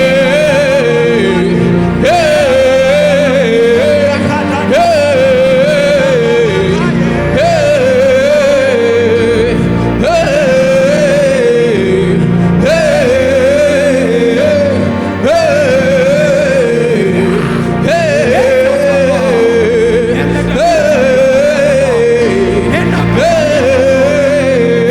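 Gospel worship music: a wordless sung chant repeated in short phrases, each leaping up and then wavering downward, about every two and a half seconds, over sustained low chords.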